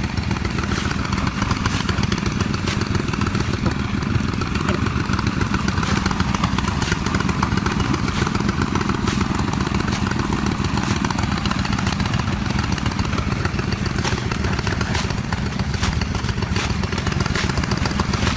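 A small engine running steadily, with scattered light clicks over it.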